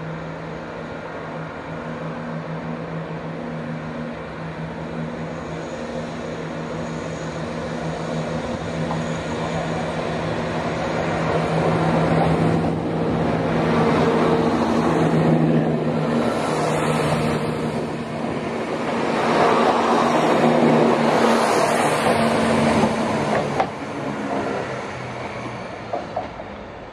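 Chiltern Railways Class 168 diesel multiple unit departing under power, its diesel engines running with a steady low hum. The sound grows louder as the train passes close by, with a rush of wheel and air noise, then fades as it pulls away, with a couple of sharp clicks near the end.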